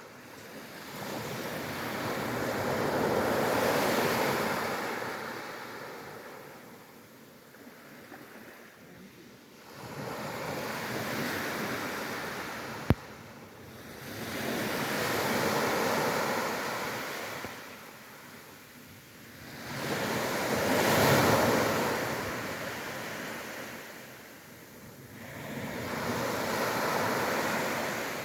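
Sea waves breaking and washing up on the shore, swelling and fading five times, about every five or six seconds. A single sharp click about halfway through.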